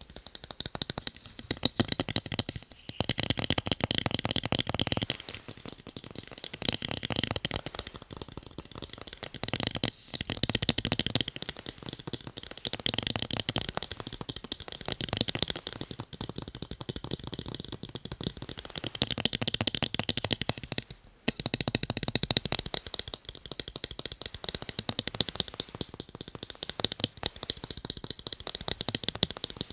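Fast tapping on a pair of eyeglasses: a dense stream of quick clicks that swells and eases in stretches of a few seconds, with a brief pause about two-thirds of the way through.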